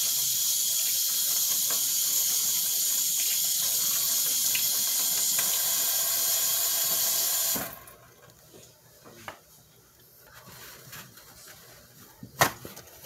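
Kitchen tap running steadily as hands are washed under it, shut off abruptly about seven and a half seconds in. Then a few faint handling clicks and one sharp knock near the end.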